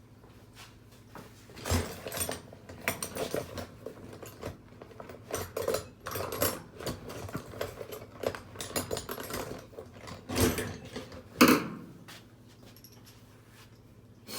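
Hand tools and small metal parts being handled and rummaged through: an irregular series of clinks, rattles and knocks. The sharpest knock comes about 11 seconds in.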